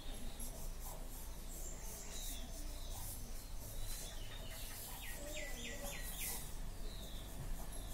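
Small birds chirping, with a quick run of four short notes about five seconds in, over the faint repeated scratch of a pencil sketching lightly on paper.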